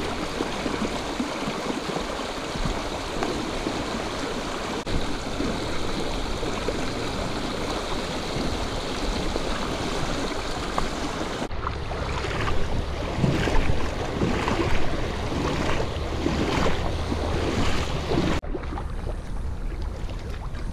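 Creek water rushing over rocks in a shallow riffle, a steady hiss of moving water. It changes abruptly to a gustier sound about eleven seconds in, and to a quieter one near the end.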